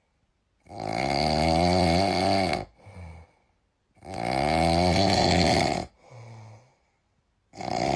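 A sleeping capybara snoring in a slow rhythm: long, loud snores of about two seconds, each followed by a short, softer breath, repeating about every three and a half seconds, with a third snore starting near the end.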